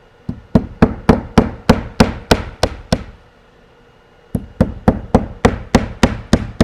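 Hammer driving nails through the nail hem of a horizontal siding panel: two runs of quick, even blows, about three a second, with a short pause between the runs.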